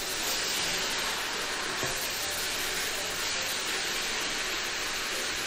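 Garlic sprouts and fried tofu puffs sizzling in a hot wok as they are stir-fried, a steady hiss, with a light knock of the spatula about two seconds in.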